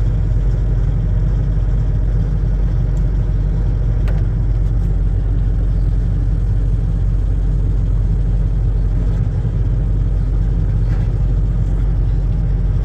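John Deere excavator's diesel engine running steadily under the operator as the machine is worked, heard from the operator's seat, with a faint click about four seconds in.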